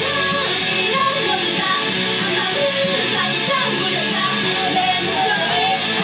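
Loud music played over a live venue's sound system: a woman's singing voice over a full backing track with guitar.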